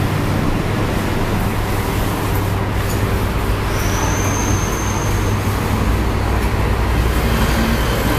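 Steady road traffic noise with a low rumble, with a thin high whine for a second or so about four seconds in.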